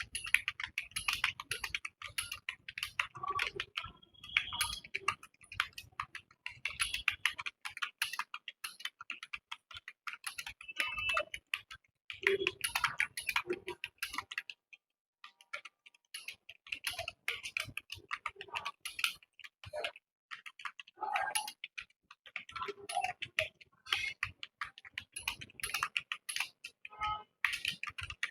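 Fast, continuous typing on a computer keyboard: a rapid run of key clicks, with a brief pause about halfway through.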